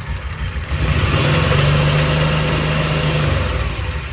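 Liquid-cooled Kawasaki V-twin engine of a Mule 4010 idling, revved up about a second in, held for a couple of seconds, then let back down to idle. It is firing on both cylinders again now that a broken spark plug has been replaced.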